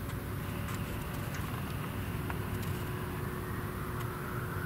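Pilatus PC-24's twin turbofan engines running as the jet rolls along the runway: a steady low rumble with a faint whine that begins to rise near the end.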